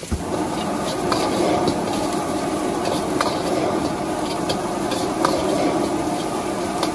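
Stir-frying in a street-food wok: a steady loud sizzle of food in hot oil, with the spatula clinking against the wok about once a second.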